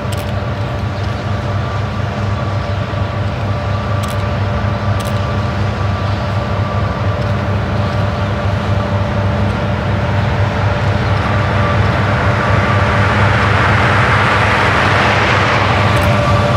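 Diesel locomotives of a loaded coal train, led by an EMD SD70ACe, approaching under power: a steady engine rumble with a held whine, growing steadily louder. Wheel and rail noise swells in the last few seconds as the lead units draw near.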